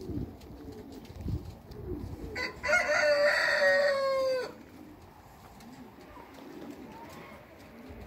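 A rooster crows once, starting about two and a half seconds in: one long call of about two seconds that sinks a little in pitch at its end.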